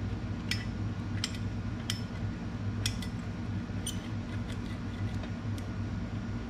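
Light sharp clicks, about one a second, from the plastic front brake caliper cover and its perforated metal screen being handled after being unclipped from a Harley-Davidson touring caliper, over a steady low hum.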